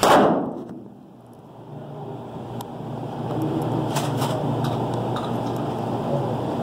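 A falling whoosh fades out at the very start, then a steady rumbling background noise of an indoor shooting range, with a few faint clicks.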